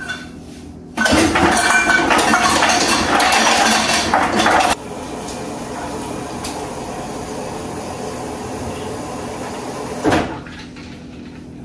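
Refrigerator door dispenser dropping ice into a stainless steel tumbler, a loud clatter of cubes for about four seconds. Then a steady stream of water fills the tumbler for about five seconds, ending with a short knock.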